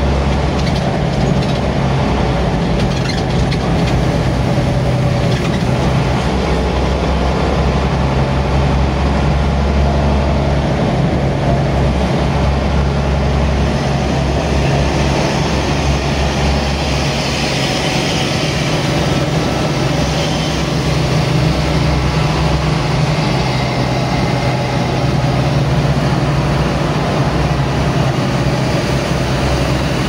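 Diesel intercity bus heard from inside its cabin while under way in slow traffic: a steady low engine drone with road and cabin noise.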